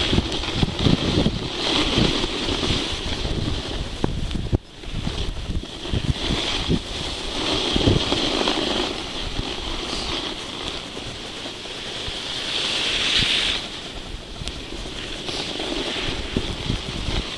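Skis hissing through snow in a string of turns, the hiss swelling every second or two, with wind rumbling on the microphone. The sound drops out sharply for a moment about four and a half seconds in.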